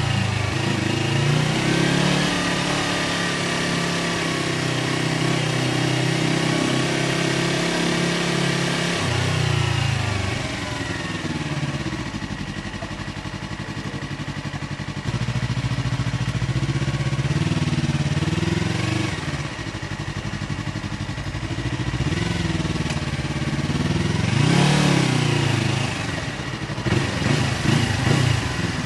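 Yamaha R3's parallel-twin engine through an SC Project aftermarket exhaust, ridden on the road. It holds steady revs, eases off about nine seconds in, then picks up again and rises and falls a few times, with a burst of irregular pops near the end.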